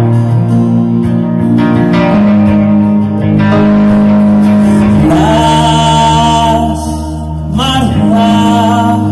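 Live rock band playing an instrumental passage with electric and acoustic guitars, heard from among the audience. About halfway through, a held melody line with a wavering pitch comes in over the chords.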